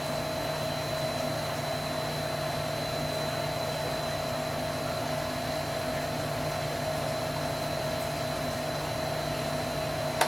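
Steady machine noise: an even hiss with a constant low hum and a thin high whine, from a running fan or similar motor-driven appliance. One short click near the end.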